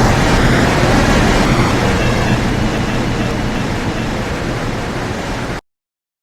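Mexico City Metro NM-79 rubber-tyred train running past, a loud rushing rumble that slowly fades as it moves away, cut off abruptly near the end.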